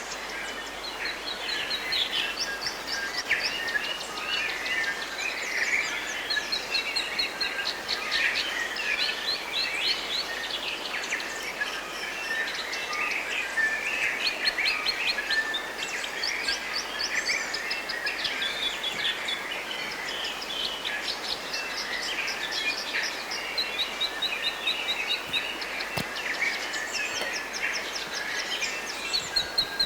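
A dawn-chorus-like mix of several songbirds singing at once, thick with rapid runs of repeated chirps and trills, over a steady faint hiss.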